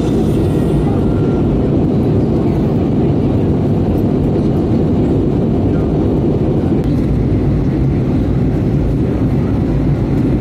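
Steady low rumble of an Airbus A320neo's engines and airflow heard inside the passenger cabin, with no change in level.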